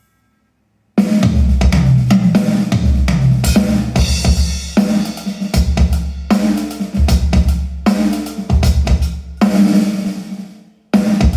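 Music with a prominent drum kit (kick drum, snare and cymbals) over a heavy bass line. It starts suddenly about a second in and breaks off briefly near the end before coming back.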